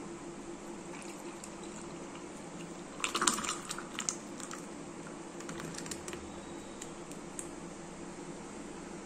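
Lassi poured from a jug into a glass mug: splashing and clicks against the glass for about half a second starting three seconds in, then scattered lighter clicks. A steady low hum runs underneath.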